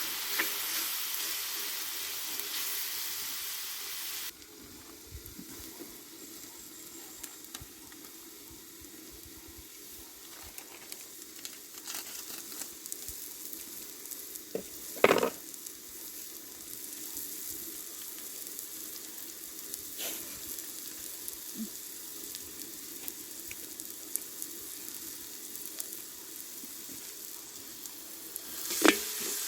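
Food sizzling as it fries in hot oil in a pan, a steady hiss that drops suddenly in level about four seconds in. A sharp clatter of a utensil against the pan comes about halfway, and another near the end.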